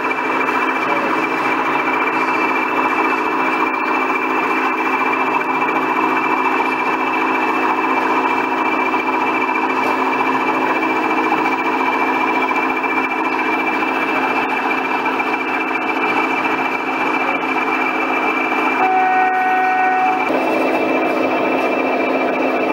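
Diesel engine sound from a sound-fitted OO gauge model locomotive playing through its small speaker: a steady drone with a high whistle over it, against constant hall noise. A short horn blast sounds near the end.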